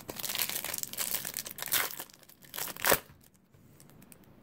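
Foil wrapper of a baseball card pack crinkling and tearing as it is handled and torn open, with one sharp, loud crackle about three seconds in before it goes fairly quiet.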